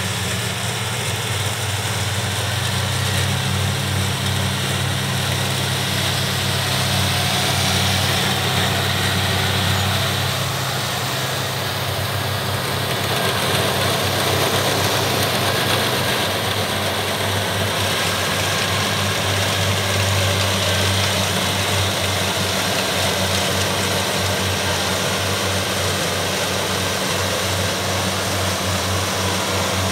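Kubota rice combine harvesters running steadily as they cut and thresh rice: a deep engine hum under a steady hiss. The engine note shifts slightly about halfway through.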